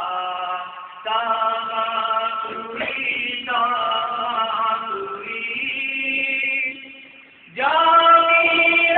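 A man chanting a devotional poem in long, melodic held phrases, with short breaks between them. Near the end the voice stops briefly, then comes back loudly on a new phrase.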